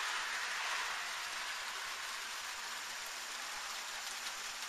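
Light rain falling steadily as an even hiss of drops, slightly louder in the first second.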